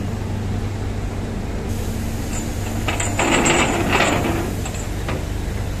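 Heavy diesel vehicle engines running with a steady low hum. About three seconds in, a louder hissing, clattering burst lasts roughly a second.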